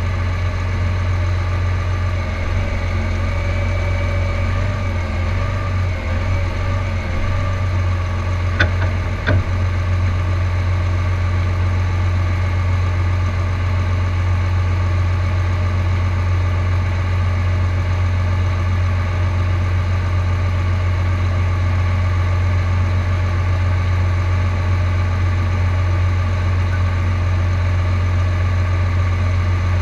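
John Deere tractor's diesel engine idling steadily, with two short clicks about nine seconds in.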